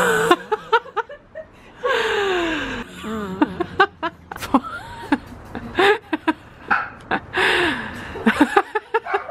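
Laughter and excited cries from a woman, with short exclamations sliding up and down in pitch and a long falling cry about two seconds in, mixed with snatches of speech.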